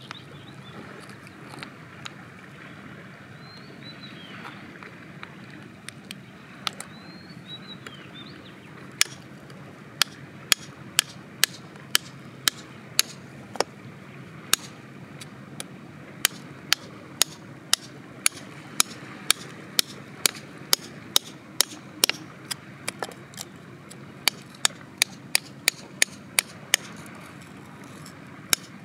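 A thin rod scraping and prodding into gritty soil and stone, making a run of sharp clicks about two a second from about nine seconds in until near the end. A few short bird chirps come in the first seven seconds.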